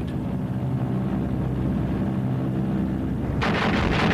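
Piston engines of bombers in flight, droning steadily. About three and a half seconds in, a sudden dense crackle of rapid anti-aircraft gunfire breaks in over the drone.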